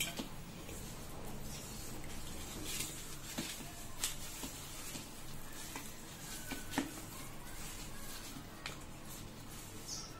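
Hands mixing raw fish pieces with spice masala in a stainless steel bowl: soft squishing and rubbing, with scattered sharp clicks and taps against the steel bowl.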